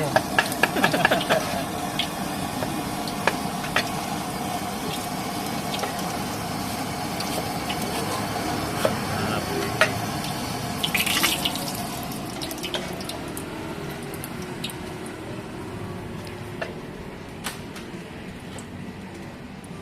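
Food sizzling and frying in a wok on a street-food cart, with scattered sharp clinks of a metal spatula. The clinks come quickly at first, then only now and then, as the sizzle slowly fades.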